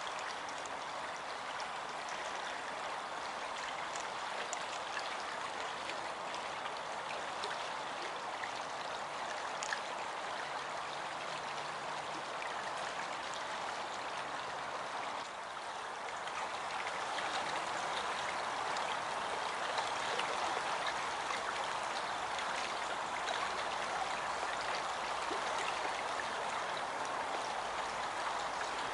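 A stream running over stones, a steady rushing, babbling wash of water that gets a little louder about halfway through.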